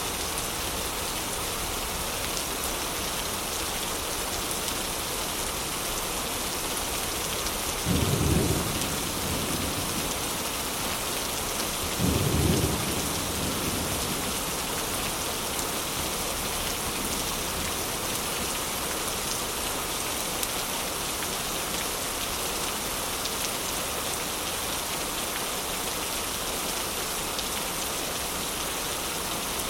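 Steady heavy rain hissing throughout. Two short, loud low rumbles come about 8 and 12 seconds in.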